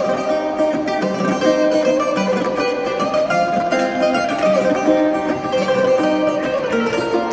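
Two bouzoukis playing a quick plucked melody together, amplified through portable speakers.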